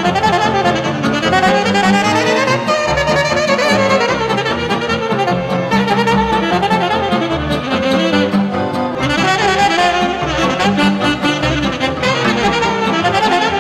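Saxophone playing a fast Romanian brâu folk dance tune over a backing accompaniment with steady low notes.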